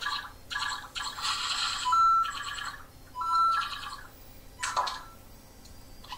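Electronic bleeps and chirps from a small speaker, in irregular short bursts with a few held tones and one falling sweep about three quarters of the way through.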